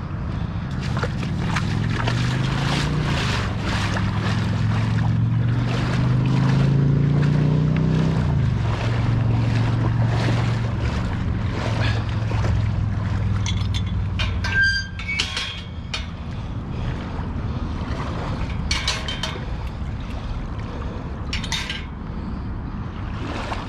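Splashing through knee-deep flood water, with wind on the microphone. A low hum rises in pitch for several seconds, drops sharply about eight seconds in, then runs steadily for a while before fading.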